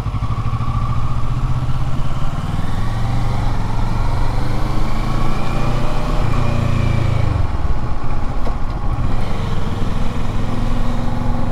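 Kawasaki motorcycle engine running steadily at low road speed, its note shifting about seven seconds in.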